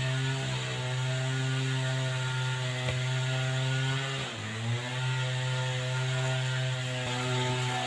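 A small petrol engine running at a steady speed, off to one side, with its pitch dipping briefly about four seconds in and then recovering.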